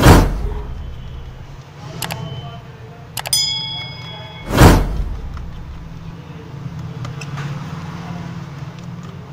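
Small phone screws being worked out with a precision screwdriver: quiet handling noise with a few small clicks, one of them a short metallic ting about three seconds in. Two loud brief brushing rushes, at the start and about halfway, stand out over a low steady hum.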